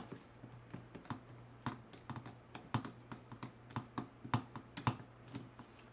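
Hand driver turning out a small hex bolt from a metal fuse end cap: light, irregular metallic clicks and ticks, a few louder than the rest.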